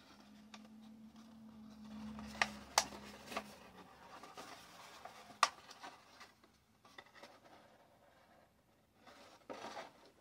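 A paper-craft skull made of copy paper being handled: soft rustling and rubbing of paper, with three sharp clicks a little past two seconds in and about five and a half seconds in, and a short burst of rustling near the end. A faint low hum runs through the first few seconds.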